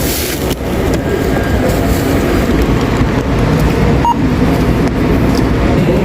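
Supermarket checkout ambience: a loud, steady low rumble of store noise, with one short beep, like a barcode scanner reading an item, about four seconds in.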